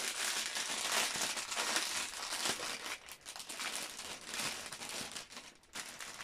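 Clear plastic packaging around bags of diamond painting drills crinkling and crackling as it is handled, growing fainter toward the end.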